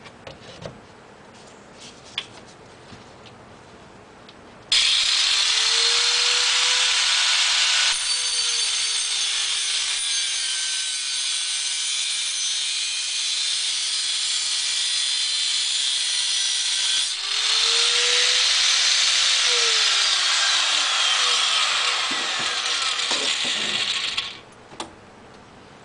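Angle grinder run twice: the motor spins up with a rising whine and grinds with a loud hiss, dips briefly, then spins up again and winds down as it is switched off.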